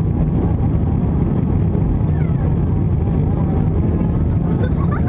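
Cabin noise of an Airbus A320-200's twin jet engines at takeoff power during the initial climb, heard from a seat over the wing: a steady, deep, rushing roar.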